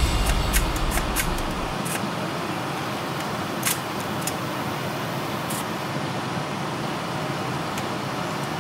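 Steady noise of a vehicle running, with a few light clicks scattered through it. Music fades out in the first two seconds.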